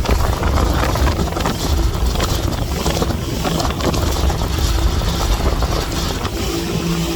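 Motorboat under way: its engine drones steadily under the rumble and buffeting of wind on the microphone, with a steady engine tone coming through more clearly near the end.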